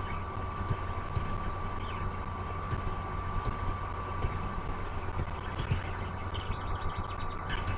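Steady outdoor background rumble and hiss from a nest-camera microphone, with a constant hum tone. Faint high ticks are scattered through it, and a brief rapid run of high notes comes near the end.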